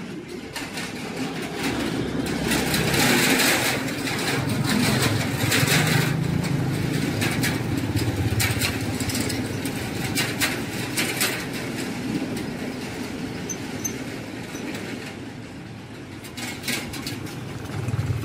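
An engine passing close by, growing louder over the first few seconds and then slowly fading, with another engine sound building near the end.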